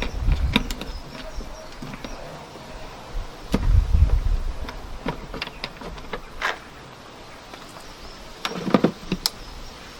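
Scattered light clicks and knocks of a socket wrench and bolts being worked out of a car's air filter housing, with bursts of low rumble near the start and about four seconds in.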